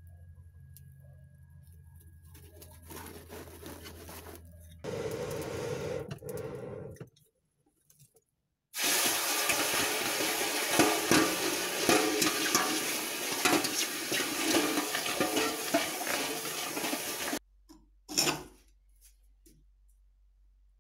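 Red-hot steel plunged into a tub of water to quench it for case hardening: a loud, dense sizzling and bubbling for about eight seconds that cuts off suddenly. Before it there is a steady low hum.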